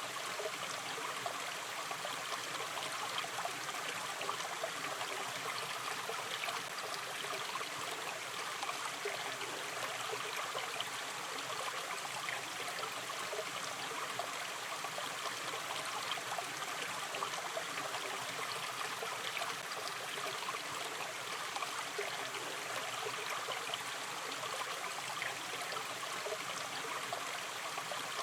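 Shallow river stream running steadily over stones, a constant gentle rush with small splashes and trickles flickering through it.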